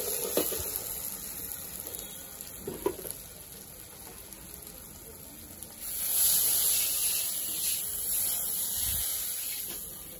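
A metal spatula clicks against a wok of frying vegetables, then about six seconds in water is poured into the hot wok and it hisses and sizzles loudly, slowly dying down.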